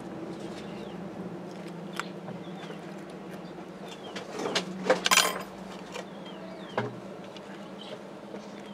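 A small handmade wire tool poking and scraping in gritty cactus substrate of sand and gravel, with scattered light clicks and a louder rattle of grains about five seconds in, over a steady low hum.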